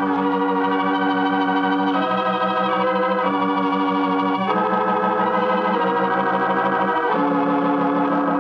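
Organ music: sustained chords with a fast wavering tremolo, moving to a new chord every one to two seconds.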